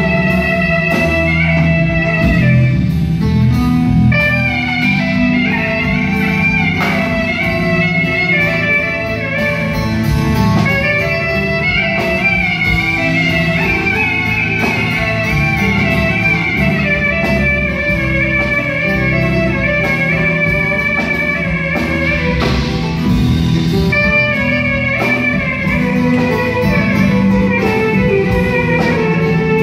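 Live Turkish folk band playing: a plucked bağlama melody over electric bass and the rest of the ensemble, running on without a break.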